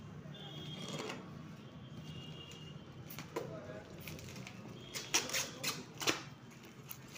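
Box cutter slicing through plastic shrink wrap on a stack of cartons, the film crinkling and rustling, with sharp snaps of plastic about five and six seconds in.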